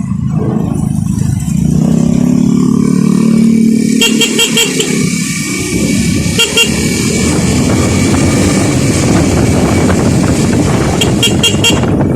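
A vehicle horn sounds for about two seconds, starting a second and a half in. The rushing noise of a moving ride then takes over. Short bursts of quick, high beeps come three times, a little after the horn, in the middle and near the end.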